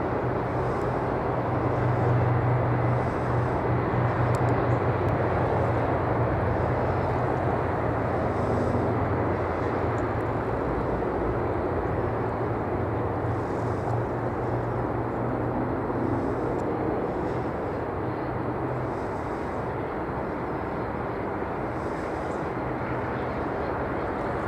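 Jet airliner engines in a steady rushing roar with a low drone underneath, loudest a couple of seconds in and then slowly fading as the aircraft moves away; the low drone dies out about three quarters of the way through.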